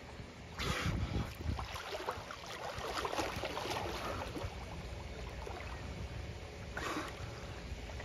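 Dolphins swimming at the surface beside a dock: water sloshing and splashing around them, with two short breathy puffs, one about a second in and one near the end, of a dolphin blowing as it surfaces.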